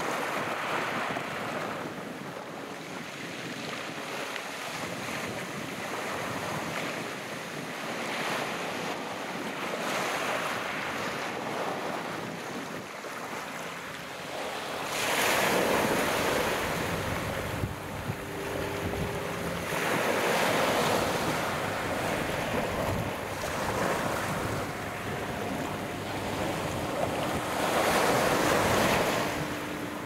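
Sea waves washing onto the shore, with wind buffeting the microphone. Three louder waves surge in: about halfway through, about two-thirds of the way through, and near the end.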